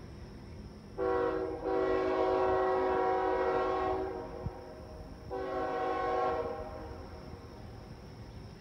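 A train horn sounding a chord of several steady tones: a long blast starting about a second in, briefly broken near its start, then a shorter blast about a second after it ends.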